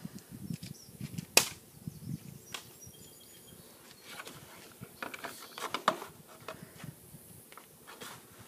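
Faint scattered rustles and light clicks from a person moving right next to the microphone, with one sharp click about a second and a half in and a cluster of clicks near the middle.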